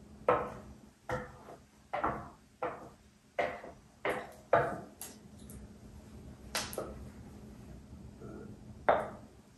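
Wooden spoon knocking against the side of a mixing bowl about ten times, at uneven intervals of roughly a second, while batter is stirred and scraped out.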